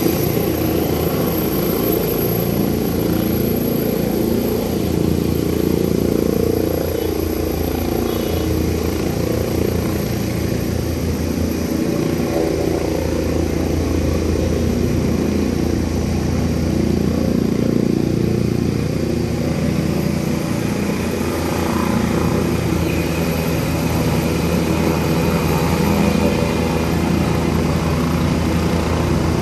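Helicopter taking off and climbing away. Its rotor and engine noise runs steadily and loudly, with slow swells in loudness.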